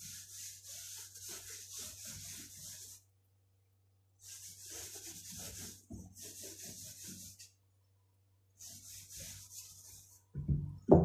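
A hand rubbing and smoothing a dusting of starch over a thin stretched sheet of rghaif dough: a dry, brushing swish in four spells with short pauses between them.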